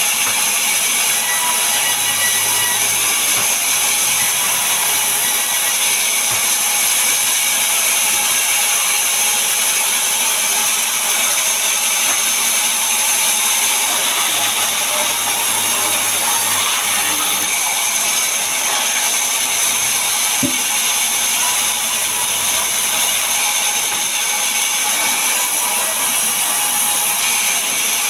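Sawmill's vertical band saw running and cutting wood as a log and slabs are fed through the blade, a steady, high-pitched noise.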